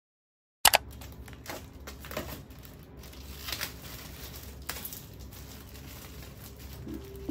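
After half a second of silence, a sharp click, then plastic wrapping crinkling and rustling with scattered light taps as small desk items are handled.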